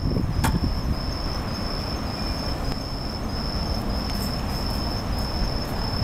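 Bell crickets (suzumushi) singing: a high, ringing trill broken into short, evenly repeated phrases, over a low rumbling background. One sharp click about half a second in.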